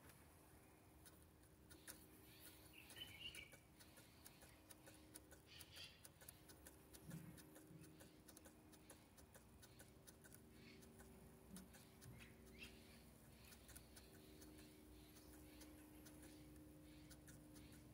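Near silence: faint scattered ticks and a faint steady hum from JR S8477 digital servos stepping in small increments while they synchronize to a master servo.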